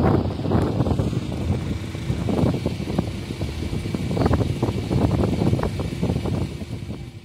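Wind buffeting the microphone in uneven gusts, over the low rumble of a jet airliner landing on a distant runway.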